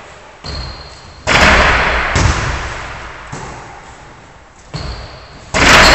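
Basketballs bouncing and striking in a large, echoing gym: a handful of sharp thuds, the loudest about a second in and again near the end, each ringing out in a long hall echo.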